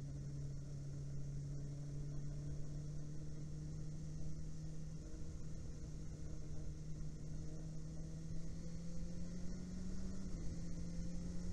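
Inline-four sportbike engine running at a steady moderate speed, its note slowly rising in pitch and dipping slightly near the end.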